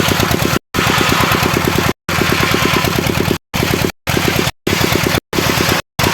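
Engine of a homemade circular sawmill running with a fast, even pulse, with the hiss of the blade rising over it at times. The sound breaks off abruptly to dead silence for a split second about five times.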